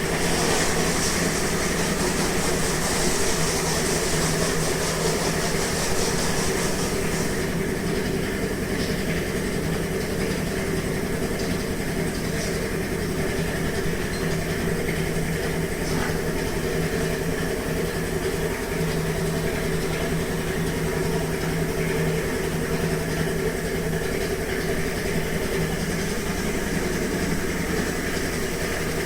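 Single-lever tape log-roll cutting machine running with a steady motor hum. A high hiss runs over it for the first several seconds, then drops away.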